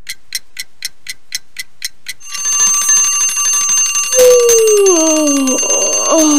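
A clock ticking about four times a second, then an alarm clock ringing from about two seconds in. Over the ringing, a long falling-pitch yawn comes about four seconds in, and another begins near the end.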